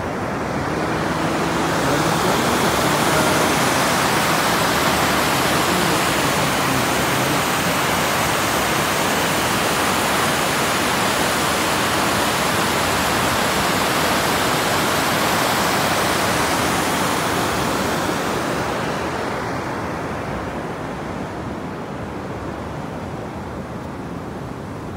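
Water rushing steadily over a low river dam's weir. The sound swells about two seconds in and fades after about eighteen seconds.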